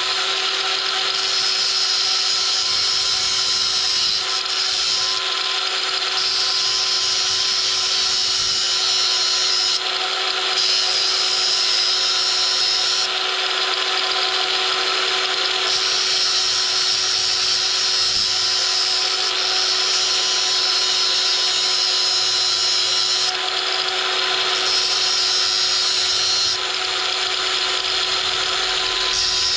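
Angle grinder with a flap disc running steadily, grinding metal on a gearbox part to thin it down.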